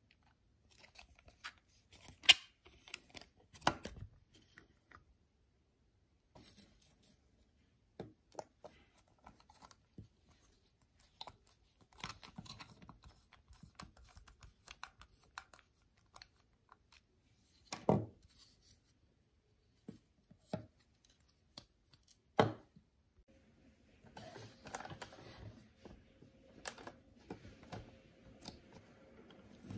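3D-printed plastic ski parts clicking and knocking as they are handled and fitted together, with a small screwdriver driving screws into the plastic; a few sharp knocks stand out. Toward the end the sound turns to a denser scratchy scraping.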